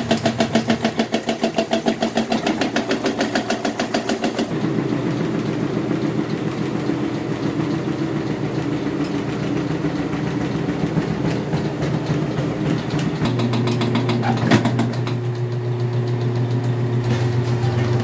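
Kuppet portable mini washing machine's spin-dryer motor running. For the first four seconds or so it throbs in a fast, even rhythm of about seven or eight beats a second, the spinning tub wobbling because the floor under it is sloped. After that it settles into a steady hum.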